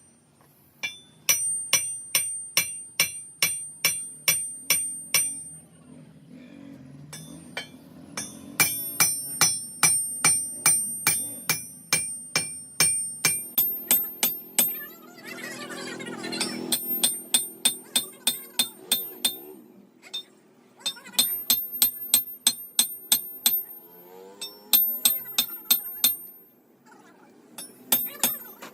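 Hammer blows on steel in quick runs of about three to four strikes a second, each blow ringing with a clear metallic tone. The runs break off for a second or two between them.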